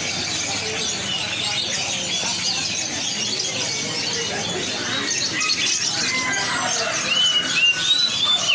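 Many caged songbirds chirping and twittering together in a dense, steady chatter, with a few clearer whistled notes near the end.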